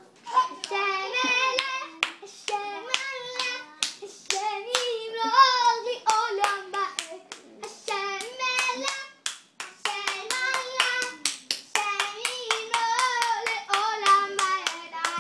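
Hands clapping in quick, uneven strikes, several a second, with a high voice singing a simple wavering tune over them. The singing breaks off briefly a little past the middle while the claps go on.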